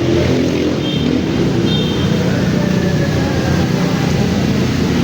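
Busy city street noise: vehicle engines running steadily, with voices in the background.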